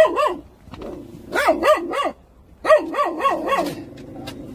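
A dog barking in quick runs of short barks, with brief pauses between the runs: one bark at the start, about three around the middle, and about five more before it stops near the end.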